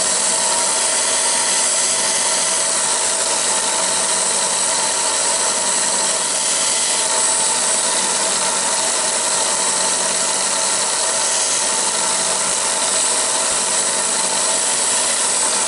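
Bench belt sander running steadily at full speed, with a few fixed tones over an even rush, while small wooden pieces are held against the belt and sanded to a point.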